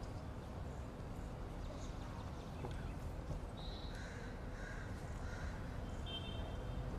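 Faint open-air ambience with a few short bird calls, caw-like, about four to five and a half seconds in.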